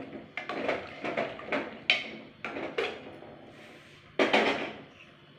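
Metal ladle knocking and scraping against the inside of a Hawkins pressure cooker while stirring chickpea curry, several ringing clinks a second, with a louder clatter about four seconds in.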